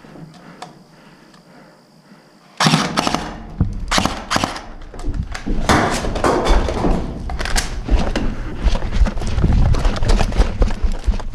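Airsoft guns firing, starting suddenly about two and a half seconds in after a quiet stretch, then rapid bursts of sharp clacks that continue to the end, over a low rumble.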